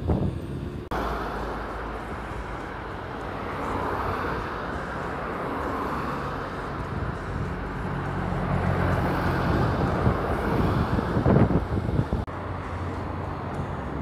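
Street traffic on a wide avenue: cars passing, with a steadier engine hum about halfway through, and wind rumbling on the microphone.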